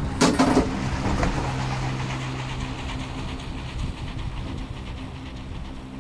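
Gondola lift cabin passing over a tower's sheave wheels: a quick clatter of knocks as the grip rolls over the wheels, then a low hum for about two seconds over the steady rumble of the cabin riding on along the cable.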